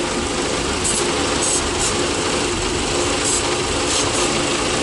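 Car engine idling roughly with a misfire, with about five short hissing sprays as spray is aimed around the intake manifold gasket to find a vacuum leak; the idle speed does not change, so no leak shows there.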